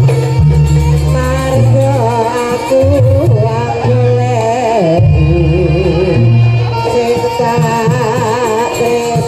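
Live Javanese jaranan music: heavy low drumming under a wavering, ornamented melody line that runs throughout.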